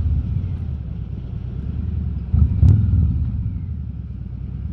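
Harley-Davidson Road King's V-twin engine running at road speed, a steady low rumble picked up by a mic inside a motorcycle helmet. About halfway through it swells briefly, with one short sharp click.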